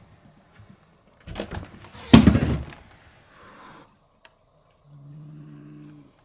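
A door being opened: a knock, then a loud thump with a short rushing scrape, and a softer rush after it. About five seconds in comes a short, low, steady hum lasting about a second.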